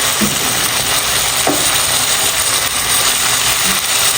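Goat meat frying in its own fat with onion, chilli and freshly added ginger-garlic paste: a steady sizzling hiss.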